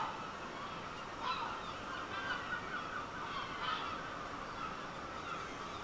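Birds calling: many calls overlapping in a steady chorus, with a few sharper calls standing out about a second in and near the middle.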